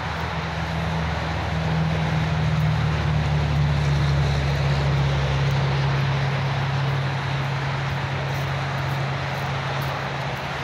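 Busy road traffic: a motor vehicle's low engine hum swells over the first few seconds and slowly fades, over a steady rush of traffic noise.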